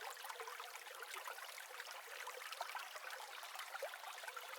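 Faint, steady trickling of running water with small scattered splashes and drips, thin and without any low end.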